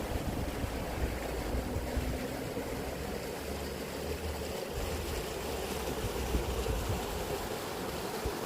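A stream flowing steadily, a continuous rushing of water, with uneven low rumbles of wind on the microphone.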